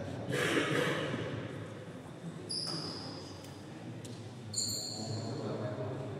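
Badminton players' court shoes squeaking sharply on the court mat twice, with a brief burst of voices from the hall about half a second in.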